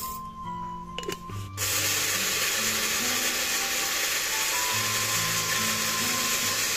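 Electric blender switching on about one and a half seconds in and running steadily, grinding whole roasted coffee beans into coffee powder; a few light clicks come just before it starts.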